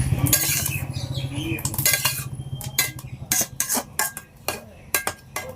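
Metal utensils clinking and knocking against a cooking pot: a quick irregular series of sharp clinks.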